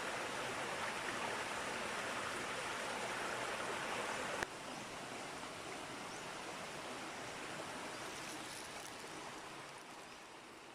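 Small stream of water flowing steadily. About four seconds in there is a click and the sound drops a little, and it fades away near the end.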